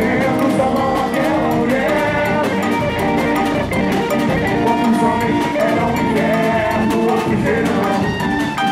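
Live samba band playing at full volume: a large bloco percussion section of surdo bass drums and snare drums driving the rhythm, with electric guitar and voices singing into microphones.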